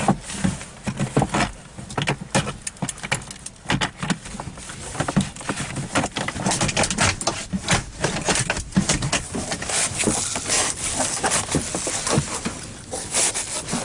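Interior plastic pillar trim of a car being pried and pulled off by gloved hands, exposing the pillar for airbag checks: a continuous run of irregular snaps, creaks and rustles.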